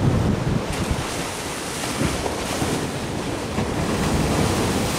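Wind buffeting the microphone in uneven gusts over the steady wash of waves against the breakwater.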